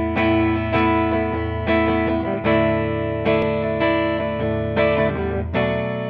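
Ibanez GRG170DX electric guitar on a clean tone, playing chords. A new chord is struck about every 0.8 s and each rings on into the next.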